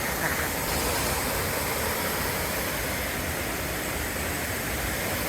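Steady rush of flowing water, an even hiss with no break or change.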